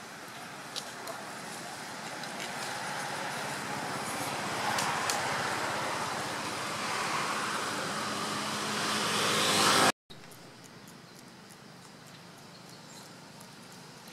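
A passing road vehicle, its tyre and engine noise growing steadily louder, that cuts off suddenly about ten seconds in. A quieter, steady background hum follows.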